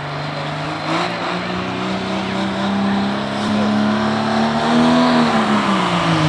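Cummins diesel engine of a Dodge Ram pulling truck running hard under load on the sled. The engine speed climbs about a second in, holds high, then sags steadily near the end as the load pulls it down.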